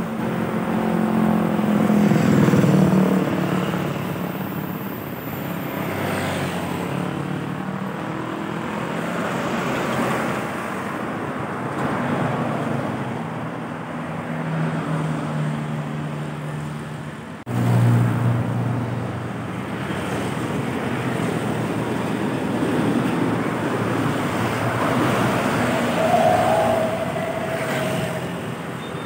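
Road traffic passing close by: cars, motorbikes and trucks driving past one after another, swelling louder as each goes by. About two-thirds of the way in, the sound cuts abruptly to another passage of traffic.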